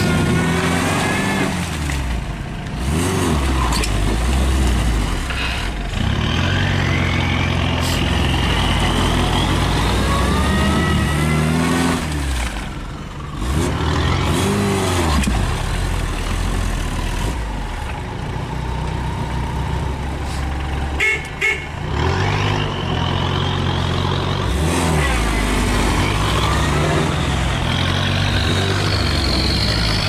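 Lada Niva engine revving hard again and again as it churns through deep mud and water, its pitch climbing and falling with each push, with brief drops in sound about 13 and 21 seconds in.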